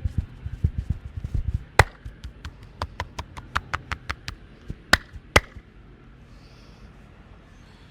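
Hands-on massage: fast, dull thumps from hands pounding on the body, then a run of sharp cracks at about three a second, with two loud cracks half a second apart about five seconds in.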